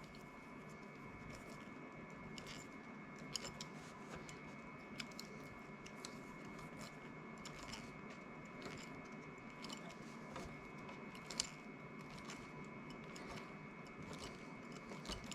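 Faint, irregular clicks and rustles of stripped copper cable cores being twisted together, with a faint steady background tone.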